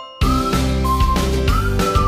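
Background music. After a brief gap, an upbeat backing with bass and drums comes in, and a whistled melody slides up into short held notes.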